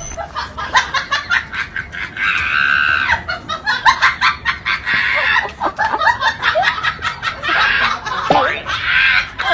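Laughter in short, choppy, repeated bursts.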